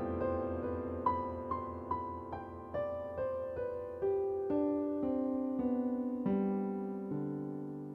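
Slow, gentle piano music: single notes struck one after another over a sustained low tone, with the line stepping down in pitch and fading away near the end.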